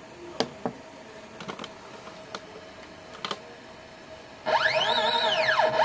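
A few sharp clicks of the controller's keypad buttons, then about four and a half seconds in a stepper motor starts jogging the Y axis. Its loud whine sweeps up in pitch and back down about once a second as each move speeds up and slows down.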